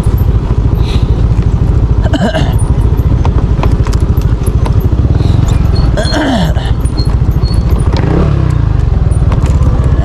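Motor scooter engine running at low speed on a rough dirt track, a steady loud low rumble. A few short sounds falling in pitch break through about two and six seconds in.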